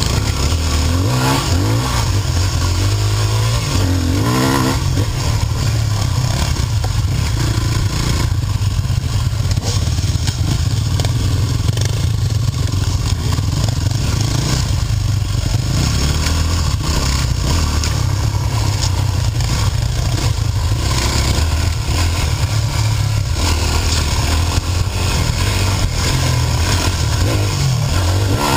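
Dirt bike engine revving up and down under changing throttle while riding a rough trail, with a heavy low rumble and clatter from the bike bouncing over the ground.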